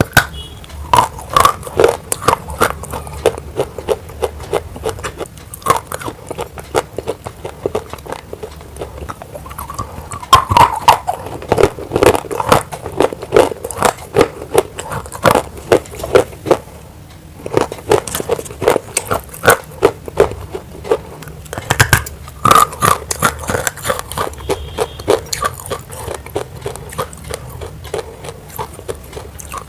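Close-miked biting and crunching of roasted grey clay chunks in the mouth: a rapid run of sharp crunches, broken by a brief pause about seventeen seconds in.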